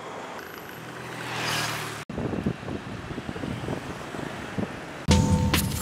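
Street traffic: motorbikes and cars running past, one vehicle swelling loudly past about a second and a half in. Near the end a loud musical logo jingle starts.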